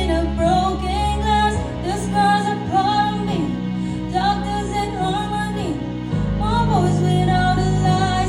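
Music: a wavering, sung-like melody over held chords, with the chords changing about a second and a half in and again near six seconds.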